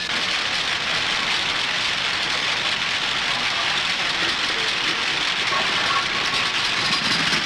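Steady, dense din of newspaper press-room machinery: conveyor tracks carrying curved lead stereotype plates, with the rotary presses running.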